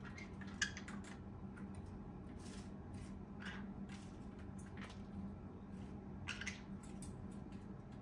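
Green-cheeked conure at a stainless steel cup on its perch, dipping its head in: scattered short scratchy clicks and wet rustles, the sharpest click about half a second in.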